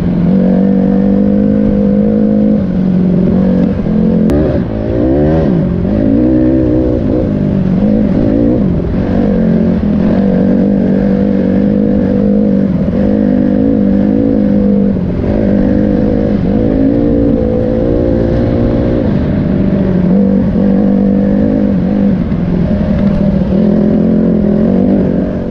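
Off-road vehicle engine running under way on a sandy dirt trail, its pitch dropping and rising several times around five to seven seconds in as the throttle changes, then holding fairly steady with small wavers.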